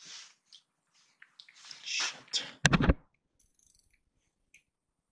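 Handling noises as an ice angler lands a fish up through the ice hole: soft rustles, then a brief cluster of loud thumps about two and a half seconds in.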